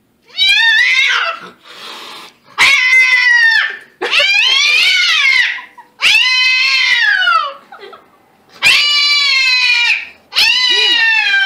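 Cat yowling at its own reflection in a mirror: six long, loud calls, each rising then falling in pitch, with short gaps between them.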